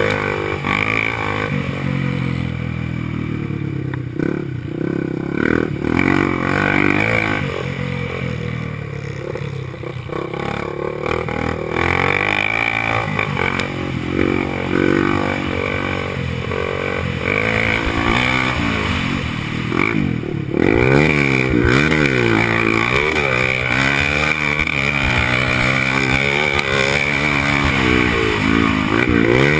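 Honda XR 250 Tornado's single-cylinder four-stroke engine being ridden hard on a dirt track, its revs rising and falling again and again. The rises and falls come quickest in the second half.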